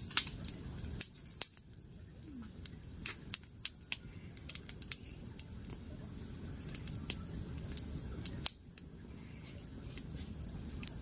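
Wood campfire crackling, with sharp irregular snaps and pops over a low steady rumble.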